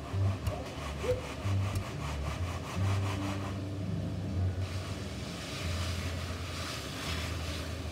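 Straightedge screed bar dragged back and forth across wet concrete to level it, a repeated gritty scraping. The scraping grows harsher and more hissing from about halfway in.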